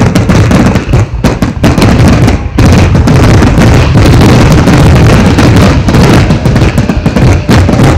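Fireworks display at close range: a dense, continuous barrage of bangs and crackles, very loud, becoming steadier and louder about two and a half seconds in.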